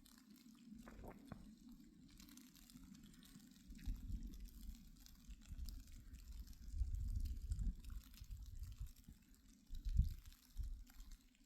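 Falling snow ticking and pattering faintly, with a few dull low rumbles about four, seven and ten seconds in, the last the loudest.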